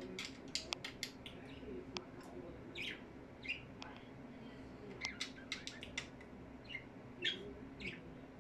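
Budgerigars chirping: short, high, quick chirps in scattered clusters, thickest near the start and again after the middle.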